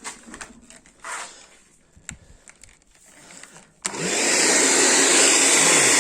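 A few faint clicks, then, about four seconds in, a hand-held hair dryer is switched on with a click. Its fan and heater run with a loud, steady rush of air, working again after its damaged cord wires were soldered.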